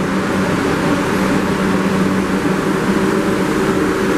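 Steady hum of a standing New York City subway train (R62A car 2341) idling at the platform with its doors open, its air-conditioning and auxiliary equipment running. It is an even drone with a couple of held low tones.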